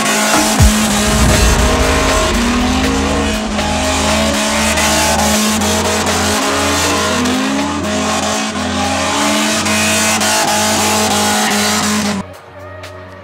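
Two drift cars sliding sideways together, with loud tyre screech and engines revving in rising sweeps, over background music with a bass beat about once a second. A sharp bang comes just under a second in. About a second before the end the car noise cuts off, leaving quieter music.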